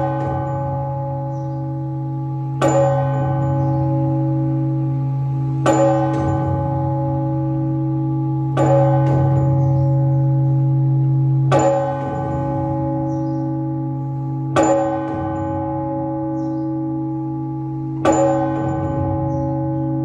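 Large Orthodox church bell struck in slow, measured single strokes about every three seconds, six times, each stroke ringing on with a deep hum into the next. This is the ringing that calls the faithful to the Sunday service.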